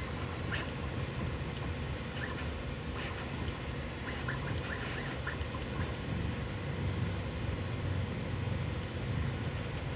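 Bambu Lab A1 Mini 3D printer running a fast print: a steady hum in which the cooling fan is louder than the printer's own movement, with scattered faint ticks.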